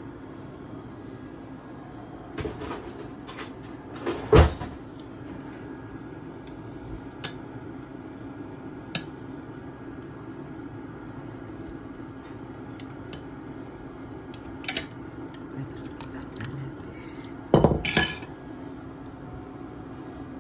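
Pot and cooking utensils clinking and knocking now and then as fish and beef go into the soup pot, over a steady low background. The loudest knock is about four seconds in, and there is a loud clatter near the end.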